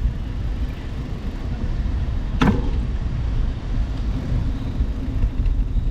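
Steady low rumble of wind and tyre noise from a moving bicycle, with one sharp click about two and a half seconds in.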